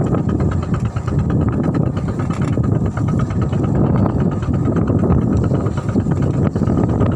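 Fishing boat's engine running steadily under way.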